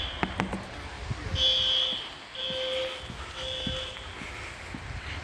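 Building fire alarm sounding its three-beep evacuation pattern: a high electronic beep three times about a second apart, then a pause before the next set starts near the end, heard from outside the building.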